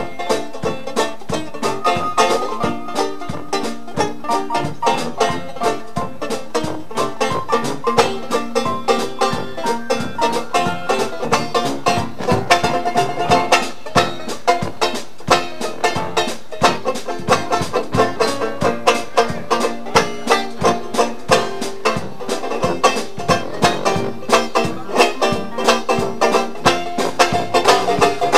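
Banjo taking a rapid, evenly picked solo in a traditional New Orleans jazz tune, with the live band playing along underneath.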